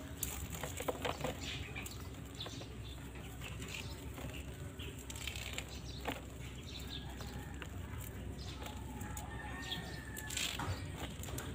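Dry amaranth seed heads and stalks rustling and crackling as hands strip the seeds off into a plastic basin, with small irregular clicks throughout.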